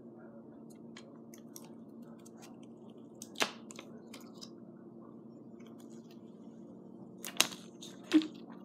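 Small clicks and taps of hands handling a phone, with a sharper click about three and a half seconds in and two more near the end, over a steady low hum.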